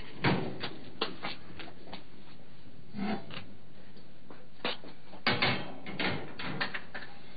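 Kitchenware being handled: irregular knocks and clinks of dishes and a wire dish rack being set down and moved around.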